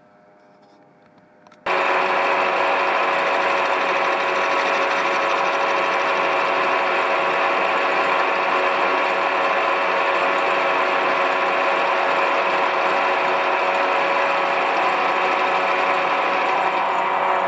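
Near silence for about a second and a half, then a milling machine running steadily, its end mill cutting a flat on a brass part: a dense, even machine whine with several steady tones that starts abruptly.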